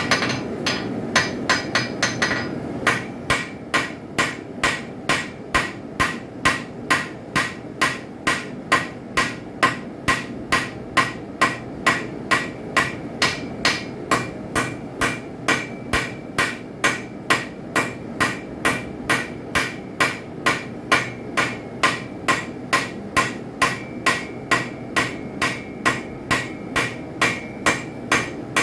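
Hand hammer striking a hot railroad spike on an anvil, forging out a knife blade: steady, evenly paced blows, about two a second.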